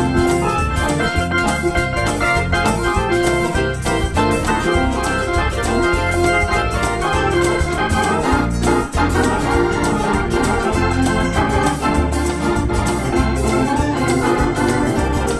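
Organ music playing, with many sharp beats running through it.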